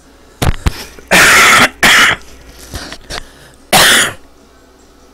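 A person coughing three times, hard and loud, with two short clicks just before the first cough.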